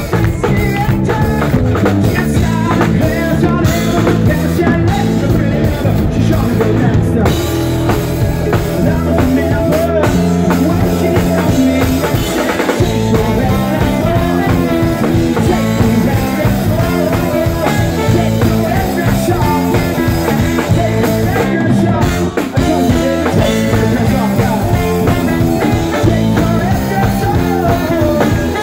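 Live rock band playing: drum kit, electric guitar and bass guitar, with a singer and a trombone.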